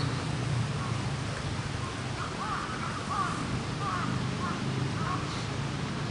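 Birds outdoors giving a series of short, repeated calls over a steady low hum.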